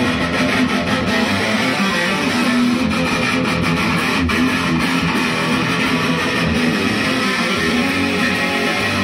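Electric guitar music, strummed and played steadily at a constant level.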